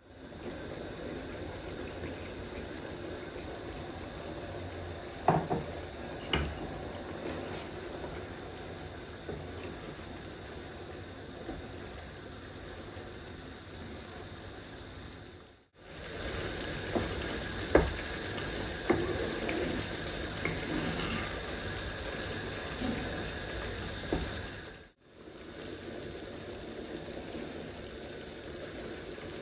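Liquid poured from a jug into a pan of frying lamb mince, then the mince bubbling and sizzling as it simmers while a wooden spoon stirs it. A few short knocks of the spoon on the pan come about five seconds in and again later.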